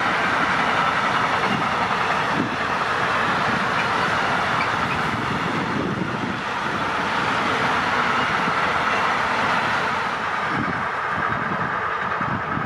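A train passing, with the steady rushing noise of its wheels rolling on the rails.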